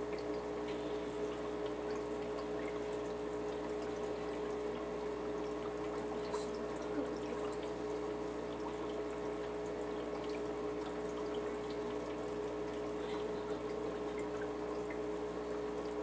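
Aquarium filter running: water trickling and splashing steadily over a constant hum.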